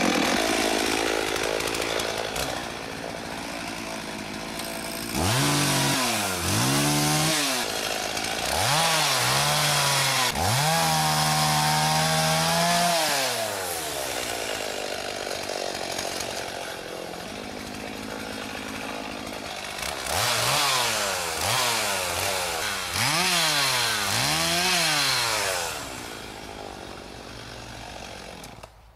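Two-stroke chainsaw running just after being started: idling between throttle blips, revved up twice about five seconds in, held at high revs for several seconds, then idling again with two more revs later before dropping back near the end.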